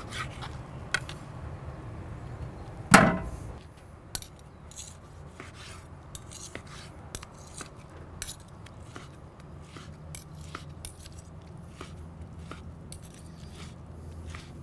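Chef's knife slicing a grilled New York strip steak on a wooden cutting board, the blade tapping the board with repeated light clicks as each slice is cut. A louder knock comes about three seconds in.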